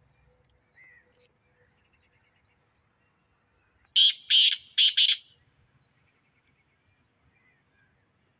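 Male black francolin calling: four loud, scratchy notes in quick succession, starting about four seconds in and lasting about a second.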